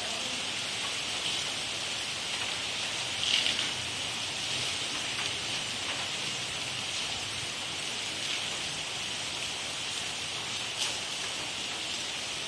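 Steady rain falling, a dense even hiss, with a few brief louder taps, the loudest about three seconds in and another near the end.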